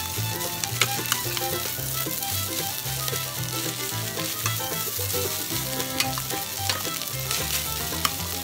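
Fried rice sizzling in a stainless steel pan while a metal spatula stirs and scrapes through it, with sharp clicks each time the spatula knocks the pan.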